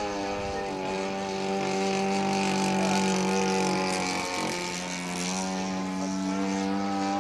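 Engine and propeller of a large-scale radio-controlled F4U Corsair model in flight, a steady single-engine drone whose pitch dips briefly a little past halfway and then settles slightly lower.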